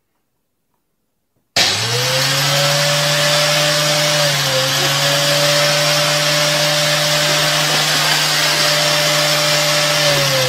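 An electric motor switched on suddenly about a second and a half in, running steadily with a low hum and a loud hiss, then winding down in pitch near the end as it is switched off.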